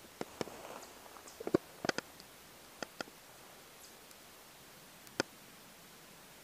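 Footsteps in dry fallen leaves, with several sharp cracks of twigs or leaves in the first three seconds; then the walking stops and one sharp click sounds about five seconds in.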